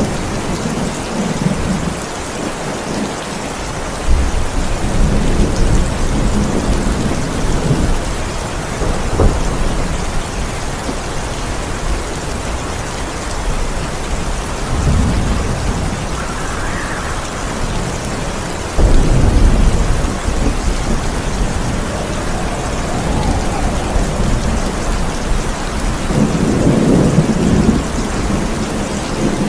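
Steady heavy rain with rolls of thunder: sudden low rumbles set in about 4 seconds in and again near 19 seconds, and a loud swell comes near the end.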